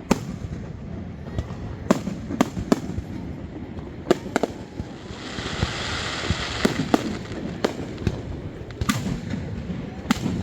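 Aerial fireworks bursting: a string of sharp bangs about every half second to two seconds, with a few seconds of hiss about halfway through, over a steady low rumble.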